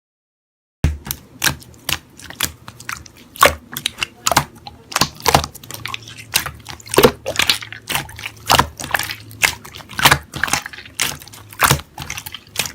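Slime being squeezed and kneaded by hand, making a fast, irregular run of wet clicks and pops that starts about a second in.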